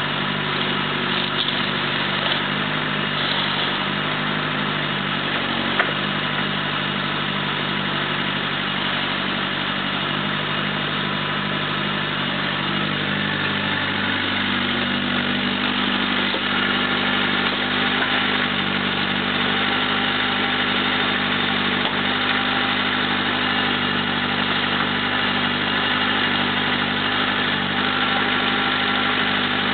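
Mini excavator's diesel engine running steadily while the boom and bucket are worked; the engine note shifts about halfway through as the arm swings round.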